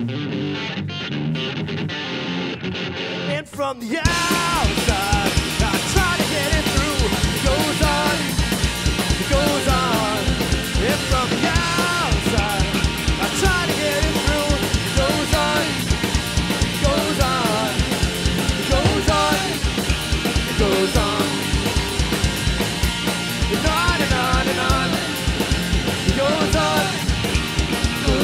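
Rock band playing live on electric guitar, electric bass and drum kit. A sparser guitar passage for about four seconds gives way suddenly to the full band with drums, loud and driving, with melodic lines over a steady beat.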